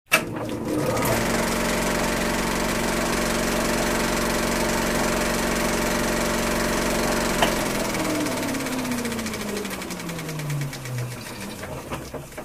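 Reel-to-reel film projector running steadily. About seven and a half seconds in there is a click, and the motor winds down, its pitch falling as it slows to a stop.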